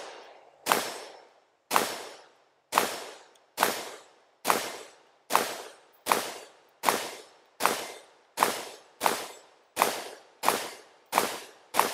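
CZ Bren 805 PS1 5.56mm pistol firing semi-automatically, about fifteen shots, each followed by a short echo. The pace quickens from about one shot a second to nearly two a second.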